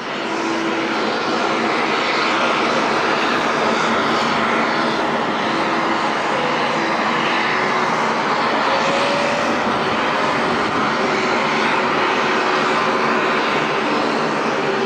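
Turbine engines of military rotorcraft running steadily on the ground, a loud even rush with a few faint steady tones coming and going.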